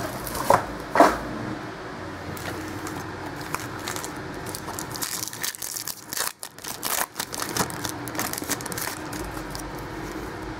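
Trading cards being handled and flipped through: scattered clicks, slides and rustles of card stock. The handling is busiest around the middle.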